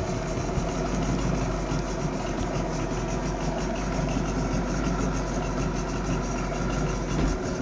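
Boat engine idling steadily, with a constant low hum.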